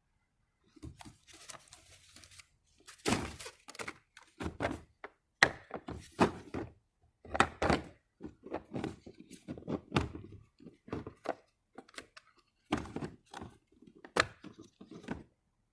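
Metal impact sockets and their case being handled: an irregular string of dull knocks and sharper clacks.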